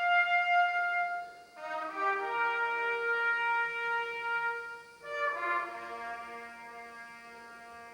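Music of sustained chords that change twice, about a second and a half in and again about five seconds in, growing quieter near the end.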